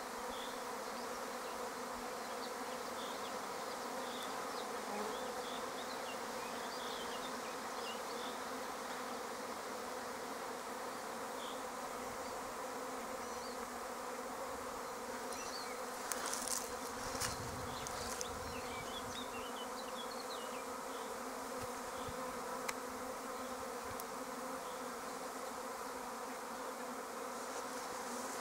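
Steady, dense buzzing of a honeybee prime swarm clustered on a currant bush, broken by a few brief knocks about sixteen seconds in.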